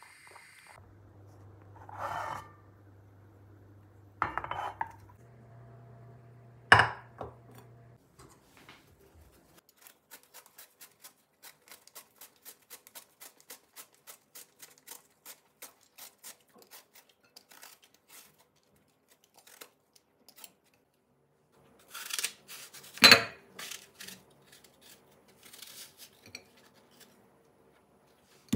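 Utensils working in a mixing bowl. There are a couple of short scrapes and a sharp knock, then a steady run of light, quick taps at about four a second, like a spoon or whisk beating in the bowl. Near the end come a few louder clinks of metal on dishware.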